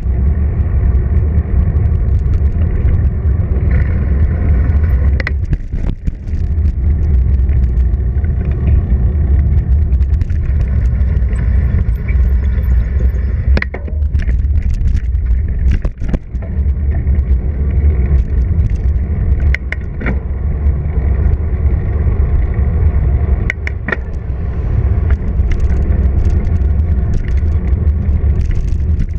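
Wind and ride noise on a bicycle-mounted action camera: a heavy, steady rumble with scattered clicks and rattles from bumps in the pavement, easing briefly twice.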